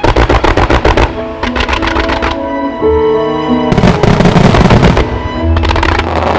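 A fireworks barrage going off in rapid crackling volleys of sharp reports, in several clusters, over music with sustained tones.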